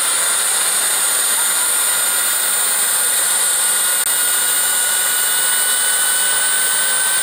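Model turbine jet engine running steadily: a loud, even hiss with a high whine that slowly rises in pitch.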